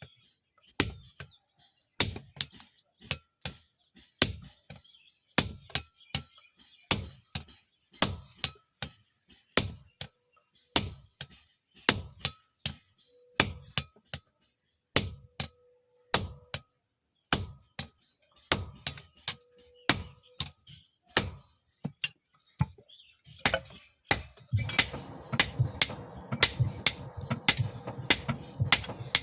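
Hammer blows on hot steel over an anvil, struck in a steady run about one to two a second, each with a short metallic ring. About three-quarters of the way through, a steady machine noise with a hum starts up under the blows.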